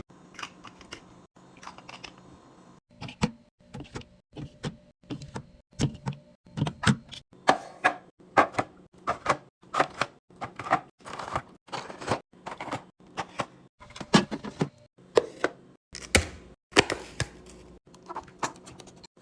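Groceries and containers being handled and set down while a fridge is restocked: a run of sharp clacks and taps, roughly two a second, with short rustles between.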